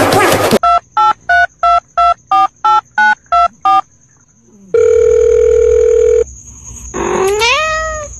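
Ten quick telephone keypad beeps at changing pitches, then one steady ringing tone lasting about a second and a half, then a cat's rising meow near the end.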